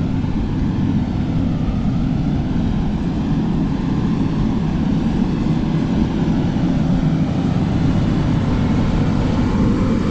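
Heavy diesel earth-moving machinery running with a steady low rumble, its pitch rising slightly near the end.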